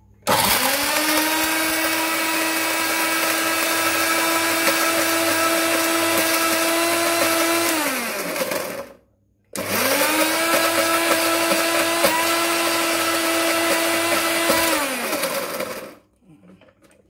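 Electric blender running in two bursts, about eight and six seconds long with a short pause between, pureeing falsa berries with water. In each burst the motor whine climbs quickly to a steady pitch, then falls away as the motor is switched off and spins down.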